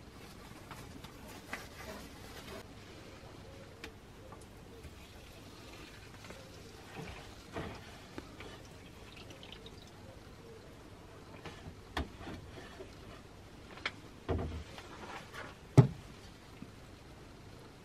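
Liquid dripping and splashing as a rusty steel cleaver blade is lifted out of a shallow tray of soaking bath, with a few short sharp knocks, the loudest near the end.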